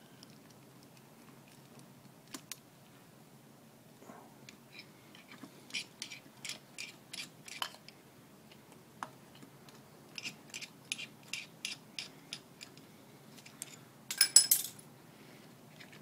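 Light metallic clicks of a socket driver turning screws out of a string trimmer's plastic air-filter housing. They come in two runs of about three clicks a second, followed by a louder brief clatter near the end.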